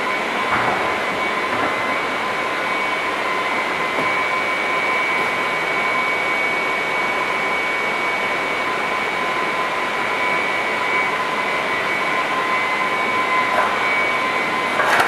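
Steady machine drone with a constant high whine and a rushing noise underneath, the running equipment of a fish-hatchery tank hall.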